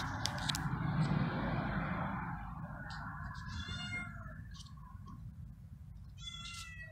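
Kitten meowing twice, two short meows about three seconds apart. Before them comes a couple of seconds of rustling noise.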